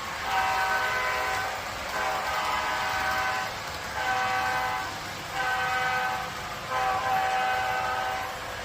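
Train horn sounding a series of blasts, each lasting about a second to a second and a half with short gaps between them. There are five in all, the third a little shorter, and the last is held longer.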